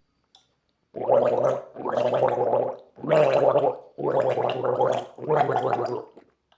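Comic vocal sound effect: five rough, pitched bursts of just under a second each, like a person gargling, starting about a second in.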